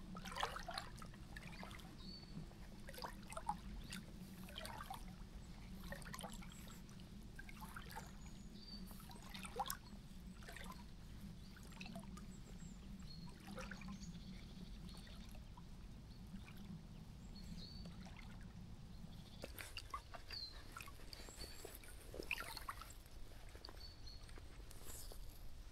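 Faint water trickling and dripping, with many small irregular clicks and a few short high chirps; a low steady hum underneath stops about three quarters of the way through.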